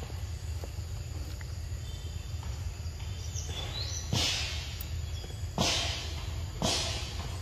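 A macaque biting and eating a ripe mango held close to its mouth: three short noisy bites or slurps about four, five and a half and nearly seven seconds in, over a steady low outdoor rumble.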